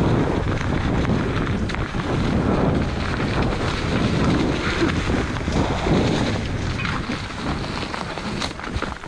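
Wind rushing over the microphone during a fast downhill descent, a steady low rumble broken by scattered clicks and rattles.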